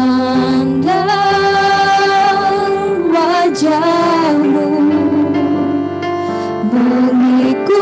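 Two women singing a slow worship song into handheld microphones over keyboard accompaniment, holding long notes with slight vibrato and gliding between some of them.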